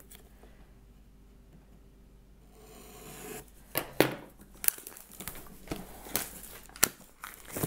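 Scissors cutting through plastic shrink-wrap on a cardboard box, heard as a rising scrape about three seconds in. Then two sharp knocks as the scissors are set down on the table, followed by the plastic wrap crinkling and tearing as it is peeled off.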